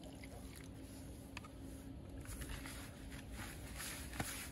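Faint rustle and patter of feeder groundbait being wetted with water, growing denser about halfway through.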